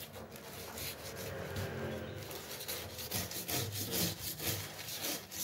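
A lime half rubbed back and forth over the scales of a whole giant gourami by a plastic-gloved hand: repeated scrubbing strokes, growing stronger in the second half.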